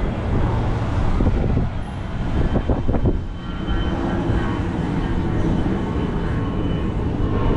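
Wind buffeting the microphone: a steady, choppy low rumble.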